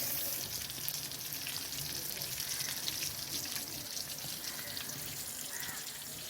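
Pieces of tuna frying in hot oil: a steady sizzle with many fine crackles.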